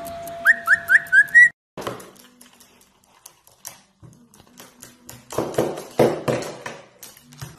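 Caique whistling a quick run of five short rising notes. From about a second and a half in, scattered clicks and taps follow, with a louder stretch of scuffing past the five-second mark, as a caique pushes and pecks at a computer mouse on a tabletop.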